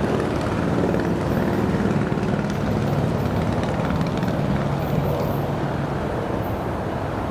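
Diesel locomotive engine running with a steady low drone that holds several pitches, with no horn sounding.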